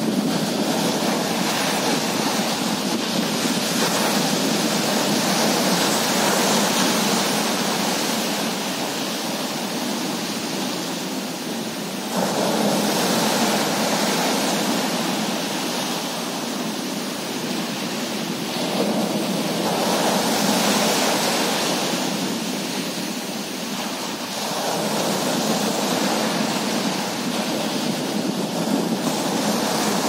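Surf breaking on the beach: a steady rushing wash that swells with each breaking wave, with surges about twelve, twenty and twenty-five seconds in.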